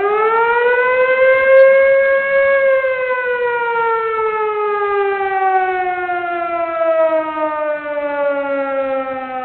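A siren: one long wail that climbs in pitch over the first second, holds for a couple of seconds, then slowly winds down.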